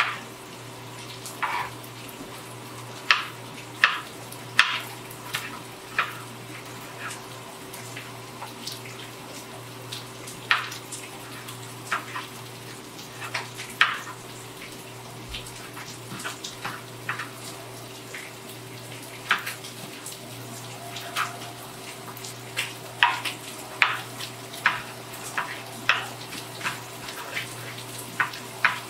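Chef's knife dicing shallots on a cutting board: sharp, irregular knocks of the blade on the board, one or two a second, fewer around the middle. Under them runs the steady hiss of sausage frying in a pan.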